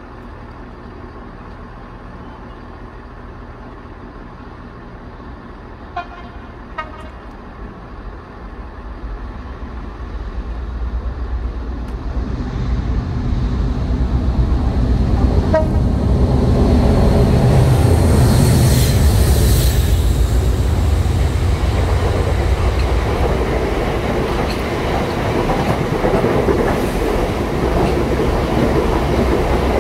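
A freight train double-headed by two Class 56 diesel locomotives, with Ruston 16-cylinder engines, approaches and passes at speed over the low idle of a diesel multiple unit standing at the platform. The horn sounds two short toots about six seconds in and one more about fifteen seconds in. The engines grow louder and are loudest passing at around eighteen seconds, then the wagons rumble and clatter by.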